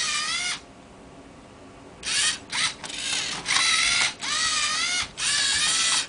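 LEGO Mindstorms NXT servo motors and gear trains whining in short runs, the pitch rising and falling as they speed up and slow down while the robot's arms turn and flip a Rubik's Cube. One run ends about half a second in; after a pause, a quick series of runs starts about two seconds in.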